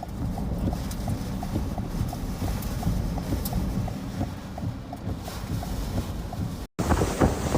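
Typhoon-force wind buffeting the microphone in a dense low rumble, with a faint regular ticking at about three a second. The sound drops out briefly near the end and comes back as louder gusts.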